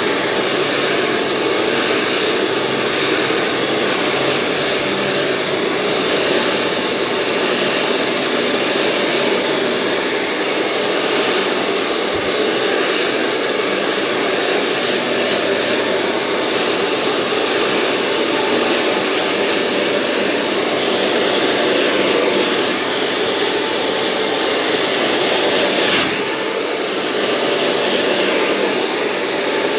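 Professional hair dryer blowing steadily as hair is blow-dried, an even rushing of air with a faint whine. A short sharp click comes a few seconds before the end, and the blowing is a little quieter for a moment after it.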